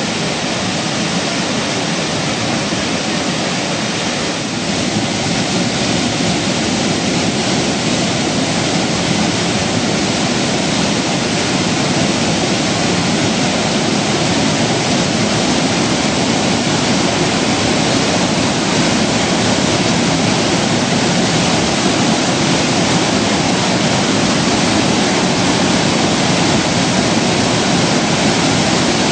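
Waterfall running hard, the creek pouring over a sandstone ledge into a pool: a steady, unbroken rush of falling water, a little louder from about five seconds in.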